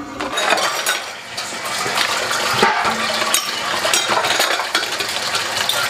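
Water running from a kitchen tap into a sink, with dishes and utensils clinking now and then as they are washed.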